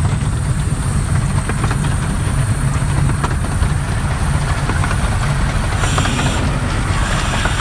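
Running noise of the miniature steam locomotive Northern Chief coasting with steam shut off: a steady low rumble of steel wheels on the rails with scattered light clicks, and a short hiss about six seconds in.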